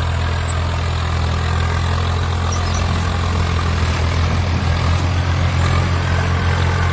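Swaraj 744 FE tractor's three-cylinder diesel engine running at a steady speed, a deep, even engine note with no revving.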